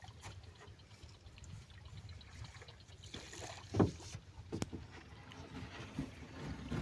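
Wind rumbling on the microphone aboard a small wooden boat, with a few knocks on the boat; the loudest knock comes about four seconds in.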